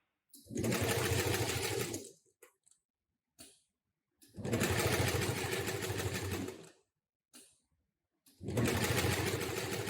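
Hi-Tech 733 extra-heavy-duty industrial sewing machine, driven by a Kindine HM750T servo motor, sewing in three short runs of a second and a half to two and a half seconds each. Each run stops with the needle parked in the up position by the motor's needle positioner, and there are short clicks in the pauses between runs.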